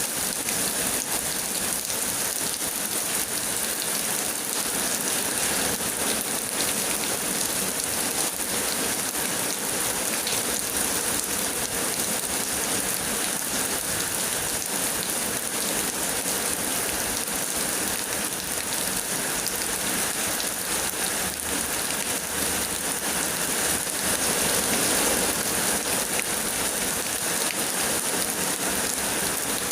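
Heavy rain pouring down in a steady, dense hiss, swelling slightly about two-thirds of the way through.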